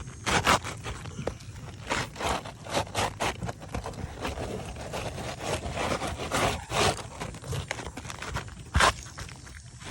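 Asphalt roof shingle being scraped and pushed back into place by hand: a run of rough scrapes and rustles with several sharp knocks, the loudest near the start and about a second before the end.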